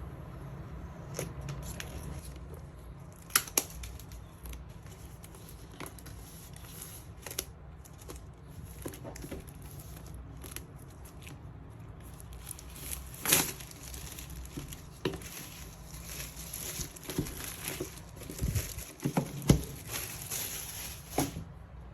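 Cardboard and paper packaging of a laptop box being torn open and crinkled by hand, with scattered sharp clicks and handling knocks; the crinkling gets busier in the second half.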